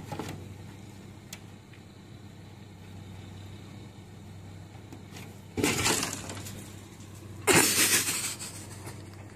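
A cat's leap from a snow-covered car roof gone wrong: two loud, rough, crashing scrapes about two seconds apart, each dying away over a second, over a steady low hum.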